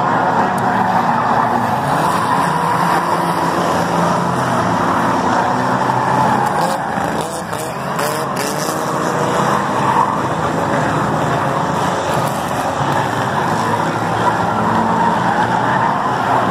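Several stock race cars' engines running together as a pack laps the track, loud and continuous, their pitch rising and falling as they rev.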